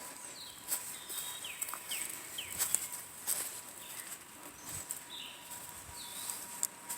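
Small birds chirping, short quick sliding notes repeated every second or so, with footsteps crunching along a path.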